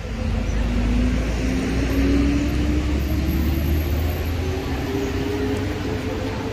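Road vehicle engine running under acceleration: a steady low rumble with an engine note rising slowly and evenly in pitch.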